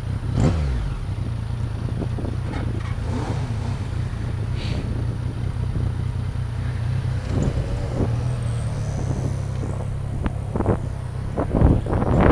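Motorcycle engine idling steadily, then revving as the bike pulls away near the end.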